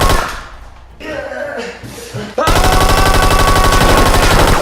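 Motorized Nerf blaster firing full-auto: a steady motor whine under a rapid, even rattle of shots. It stops just after the start and starts again about two and a half seconds in.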